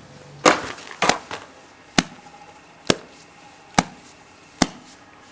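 A series of sharp, chop-like knocks, about one a second, with a few lighter taps between them.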